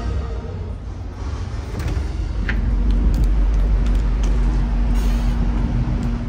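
Low, steady rumble and hum of the LNG-fuelled ferry Sunflower Kurenai's machinery, getting louder about halfway through once out on the open deck. A few light clicks sound over it.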